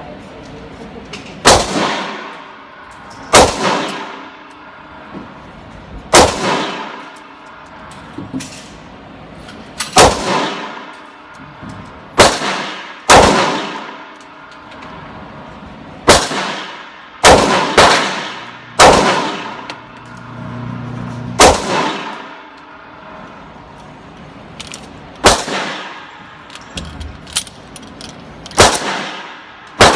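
Handgun shots in an indoor range, fired one at a time at an irregular slow pace, about a dozen loud reports each followed by a long ringing echo, with a few fainter shots in between. The pistol is firing Federal aluminum-cased rounds.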